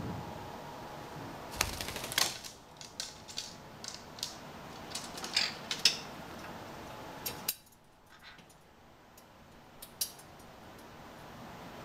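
Irregular sharp clicks and taps, in a quick cluster for the first several seconds and then a few stray ones, as a sun conure is handled into its acrylic-and-wire cage and moves about on the perches and metal fittings.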